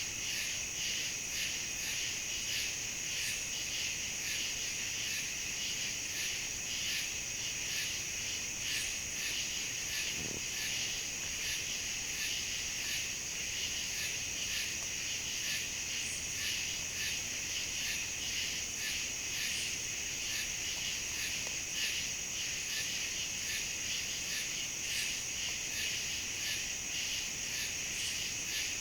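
Chorus of night insects such as crickets and katydids: a steady high-pitched trill, with a lower pulsing chirp repeating a few times a second beneath it.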